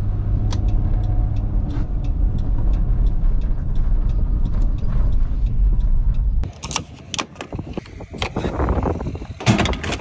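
Road noise inside a Dodge Grand Caravan driving on snow tires: a steady low rumble with faint, evenly spaced ticking. About six and a half seconds in the rumble cuts off abruptly, giving way to quieter scattered clicks and knocks.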